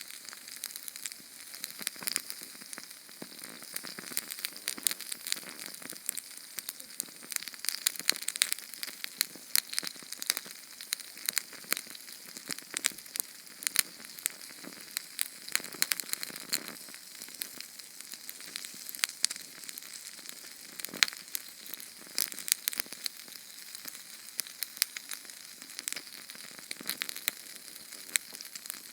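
Sterno canned-fuel flame burning: a steady soft hiss with frequent sharp crackles and pops.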